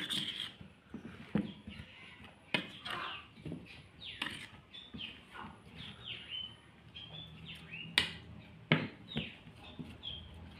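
Birds chirping in many short, falling calls, with a few sharp clicks of a metal spoon against the bowl as spice-coated ash gourd slices are stirred.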